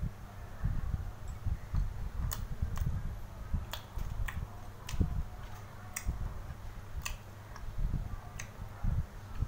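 A person chewing fish-cake slices with wet lip smacks and mouth clicks, sharp and irregular, about a dozen in all. Low thuds run underneath.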